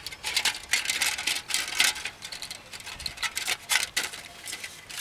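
Aluminium foil windshield crinkling, with light irregular metal clicks and taps, as it is fitted around a small gas canister stove.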